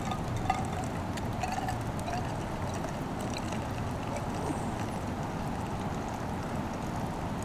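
Freshly boiled coffee pouring from a Stanley cook-set pot into a steel camp cup, with a light clink about half a second in, over the steady rush of a creek.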